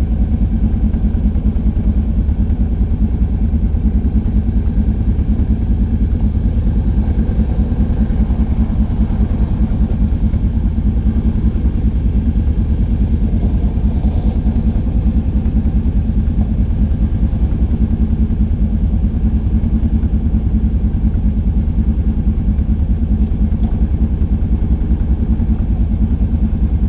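A quad ATV's engine running steadily at a low, even pace, loud and close, with no revving.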